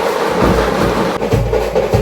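Music driven by loud, repeated drum beats; the sound changes abruptly a little over a second in.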